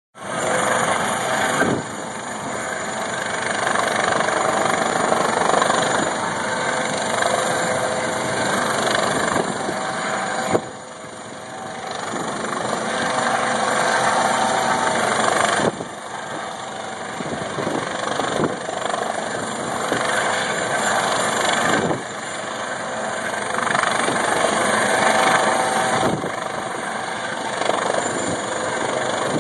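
Helicopter hovering low overhead: steady rotor and engine noise with a faint high whine, dipping briefly in level several times.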